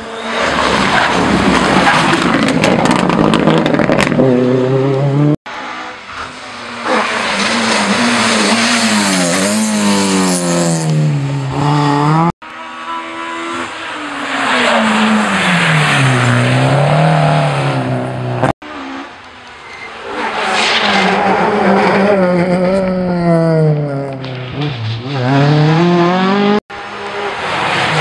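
Rally cars at full throttle on a closed road stage, the engines revving up and falling back through gear changes as they approach and pass. The sound breaks off abruptly several times between joined clips.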